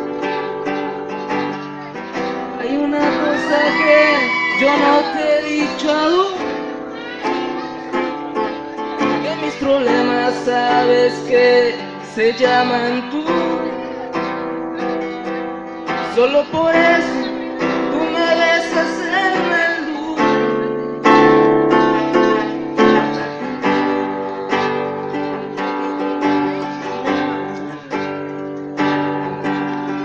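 Acoustic guitar strummed and picked as accompaniment while a voice sings into a microphone in three stretches. Near the end the guitar plays on alone.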